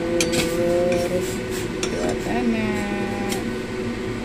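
Metal ladle stirring in a small stainless-steel saucepan, clinking against the pot several times, over a steady background hum.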